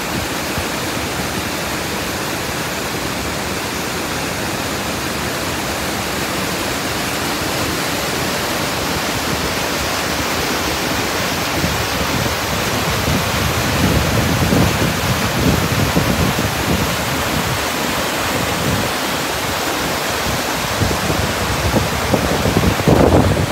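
Waterfall and its creek rushing over granite boulders: a loud, steady noise of falling and tumbling water, with louder low surges around the middle and near the end.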